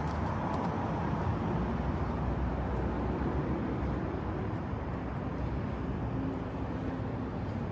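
Road traffic: a steady low rumble of vehicles on the street, easing off slightly toward the end.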